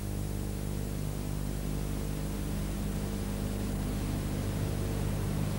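Steady low electrical hum with a layer of hiss: background noise of an old videotape recording after the speech has stopped.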